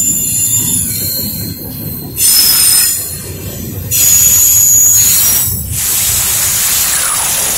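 Double-stack intermodal freight train passing close by: a steady rumble of wheels on the rails with high-pitched wheel squeal. Two louder stretches of hissing screech come about two and four seconds in.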